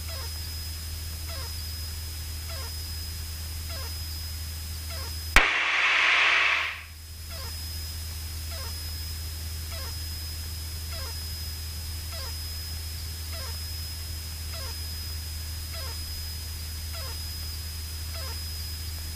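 Light aircraft cockpit heard through the headset intercom: a steady low hum with a faint high tone. About five seconds in, a sharp click is followed by a loud burst of hiss lasting about a second and a half as the intercom or radio channel opens.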